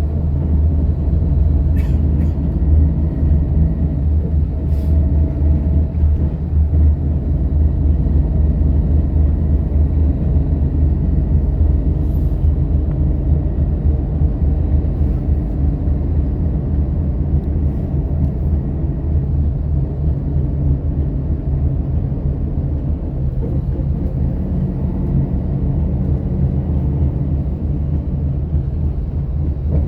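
Steady engine hum and road rumble heard from inside a moving M7412 express bus.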